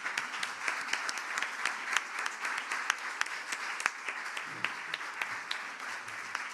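Audience applauding: many hands clapping in a dense patter that eases off a little near the end.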